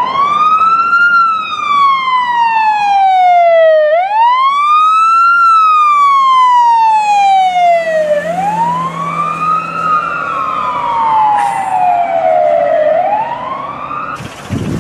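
American ambulance siren on its wail setting: the tone climbs for about a second and slides slowly down for about three, repeating about every four seconds. Near the end a steady hiss comes in.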